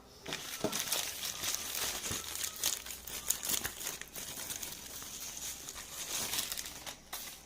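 Charger packaging crinkling and rustling as it is handled and opened, a dense run of small crackles and clicks.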